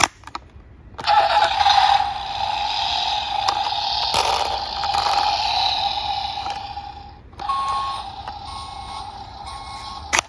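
Battery-powered toy city bus playing its electronic sound effects through a small speaker. After a click, a steady buzzing effect with hiss runs for about six seconds, breaks off, then gives way to short regular beeps, a little more than one a second.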